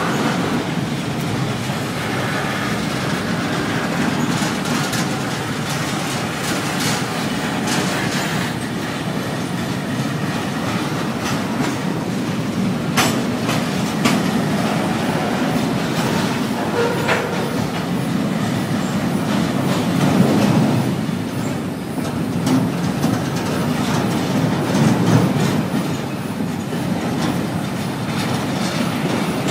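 Double-stack intermodal freight train's container well cars rolling past close by: a steady rumble of steel wheels on rail with clickety-clack over the rail joints. A couple of sharp metallic clicks come about halfway through.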